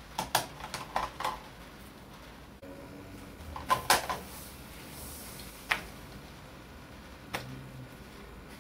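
Small sharp clicks of metal against a digital watch module as its CR2025 lithium coin cell is pried out of its holder: a quick run of clicks at the start, two louder ones about four seconds in, then two single clicks later.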